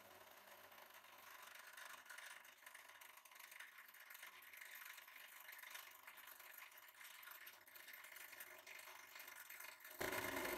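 Hydraulic press pump running with a steady whir and rattle while the ram presses a perforated plate down onto tomatoes. It gets much louder near the end as the tomatoes are crushed.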